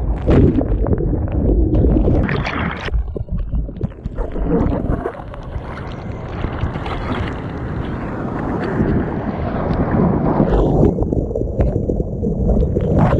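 Wind buffeting the microphone over the wash of breaking surf: an uneven rumbling noise that swells and eases.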